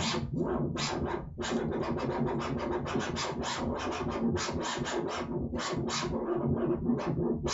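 Vinyl record scratched on a DJ turntable by a cat pawing at the record: quick, irregular scratches, several a second.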